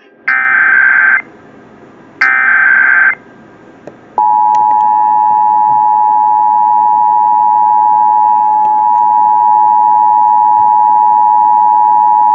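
Emergency Alert System broadcast signalling for a Required Monthly Test. First come two short bursts of the digital SAME header, a harsh warbling data screech, each just under a second long. Then, about four seconds in, the EAS attention signal starts: two steady tones of about 853 and 960 Hz sounding together in a continuous loud drone.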